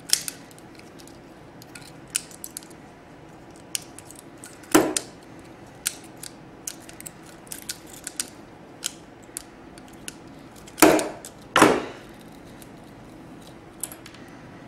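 Scattered light clicks and rattles from crimped wire terminals and hand tools being handled, with three louder knocks: one about five seconds in and two close together around eleven seconds in.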